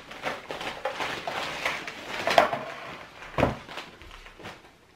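Plastic shopping bag rustling and crinkling as Tefal non-stick frying pans are pulled out of it and set down on a wooden table, with a couple of knocks of pan on pan or table, the loudest about three and a half seconds in.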